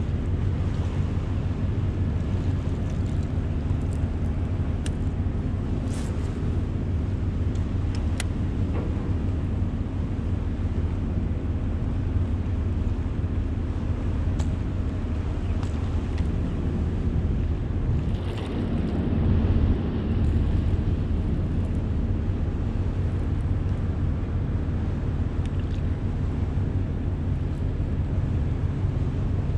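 A motor running steadily with a low hum, with a few faint ticks over it and a brief swell about two-thirds of the way through.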